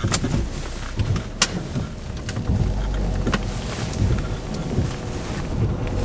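Campervan engine running, heard from inside the cab as a steady low rumble just after starting up, with a few sharp clicks over it.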